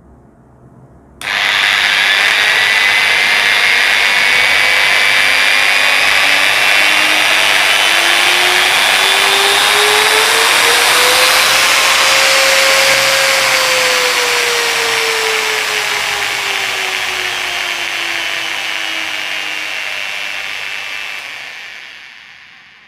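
Electric angle grinder with no disc fitted, starting suddenly about a second in and running free. Its motor whine climbs steadily in pitch for about ten seconds as the speed regulator in its supply is turned up, then falls as the regulator is turned back down, and the sound fades away near the end.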